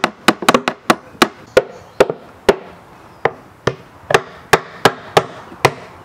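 Hammer striking plywood, driving nails into the panels of a speaker box. About fifteen sharp blows, two to three a second, with a short pause midway.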